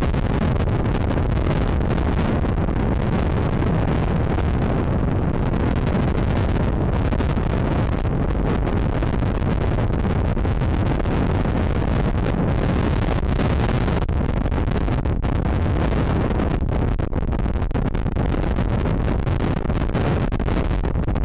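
Wind buffeting the microphone: a loud, steady low rumble with a hiss above it, unbroken throughout.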